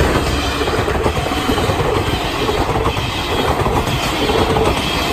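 A train running along the rails past the microphone, making a loud, steady rushing rumble.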